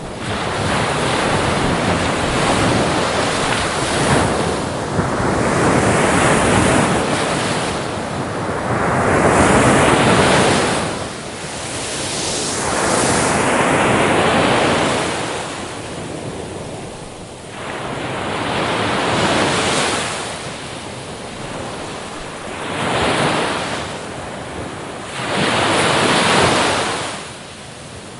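Sea waves breaking and washing on the shore, each surge swelling and falling away every few seconds, with some wind noise on the microphone.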